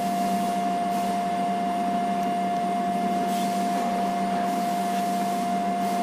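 Delta VFD control panel running on test with its drive-fed motor: a steady high whine and a lower hum over a constant rush, holding at one pitch throughout.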